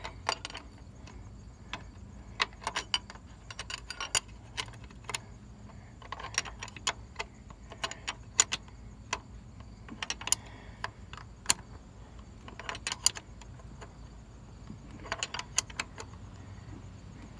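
Hand wrench tightening the mounting bolts of a power take-off on a truck transmission: short runs of sharp metallic clicks and clinks, coming in bursts several times with pauses between.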